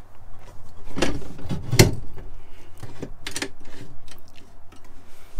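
A few knocks and clunks from a heavy, solid fitting in a boat cabin being handled and set down, the loudest about two seconds in.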